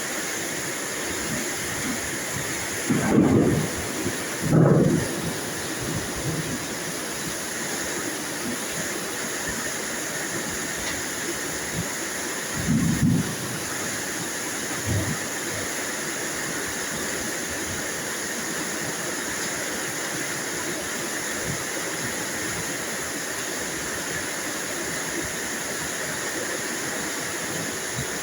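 Steady rainfall, with a few short low rumbles: two close together about three and five seconds in, and another about thirteen seconds in.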